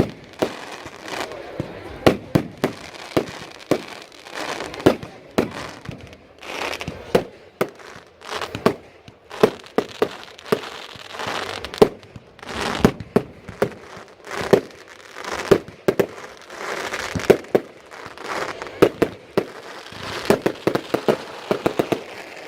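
Fireworks display: many loud, sharp bangs of bursting shells going off irregularly, one after another, with a quick run of bangs near the end.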